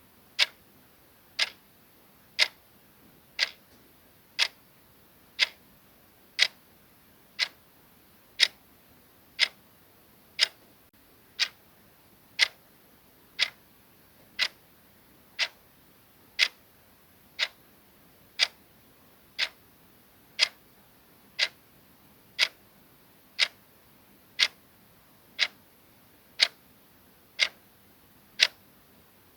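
Soft clock ticking sound effect: single short ticks, one per second, steady and even.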